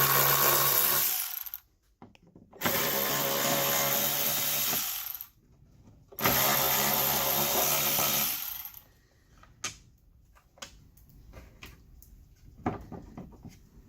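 Power drill with a T25 Torx bit run in three bursts of about two seconds each, backing out three T25 Torx screws, followed by light clicks of parts being handled.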